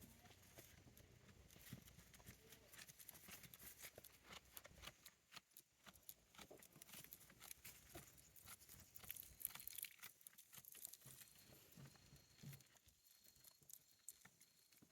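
A goat chewing its cud: faint, quick, irregular clicking and grinding of its teeth as it ruminates.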